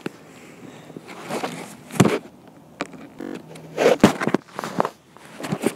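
Handling noise from a phone held in the hand: fingers rubbing and scraping over the phone near its microphone, with a few sharp knocks and a brief buzz a little past three seconds.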